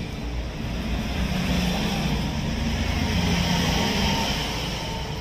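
A vehicle engine running, growing louder after about a second and easing off near the end.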